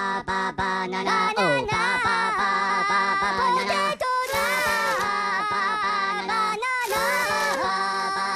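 A child singing a wordless tune: short repeated notes on one pitch for about the first second, then a sliding, wavering melody.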